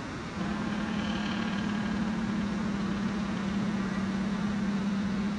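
A steady low engine hum, setting in about half a second in and holding even.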